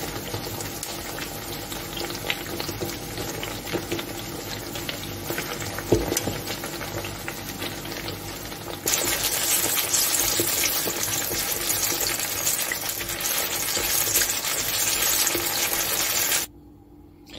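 Apple empanadilla, a wafer pastry wrapped round an apple slice, frying in hot oil in a frying pan: steady sizzling with many small crackles. It turns louder and brighter about halfway through and cuts off near the end.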